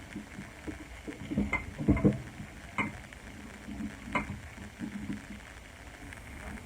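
Small metal parts of a powder-measure linkage kit being handled and screwed together: a few sharp clicks and taps, loudest about two seconds in.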